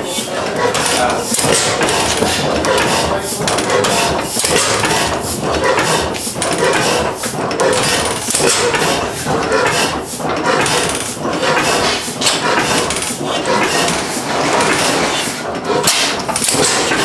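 Antique horizontal stationary gas engine with big flywheels running slowly, a steady series of sharp metallic knocks and clanks from its firing and valve gear.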